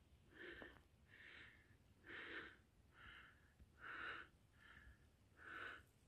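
A person breathing hard close to the microphone: seven short, quick breaths at an even pace, in and out.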